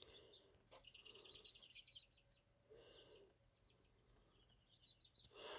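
Near silence: faint room tone with a few faint, quick, high chirps from a distant bird, about a second in, around three seconds in, and again near the end.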